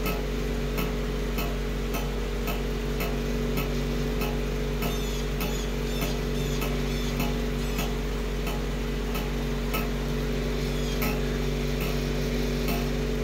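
Steady low mechanical hum with light, regular ticks a little under twice a second.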